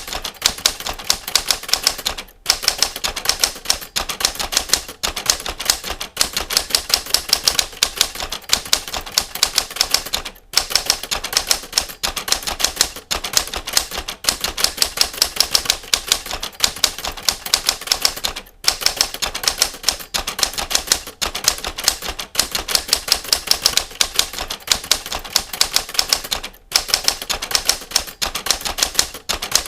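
Typewriter keys struck in a rapid, even stream of clacks, typing a fingering drill, with short pauses every few seconds.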